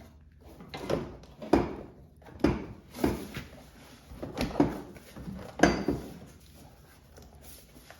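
Metal knocks and clunks as the stock exhaust of a 2015 Ski-Doo Summit X 800R is rolled backwards and worked out of the engine bay, a series of separate knocks over the first six seconds, the loudest near the six-second mark.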